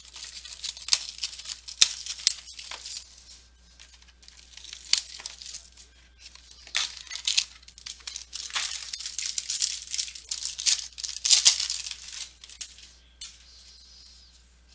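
Trading card packaging and cards being handled: irregular crinkling, rustling and tearing of wrapper, with sharp little clicks and gaps between handlings.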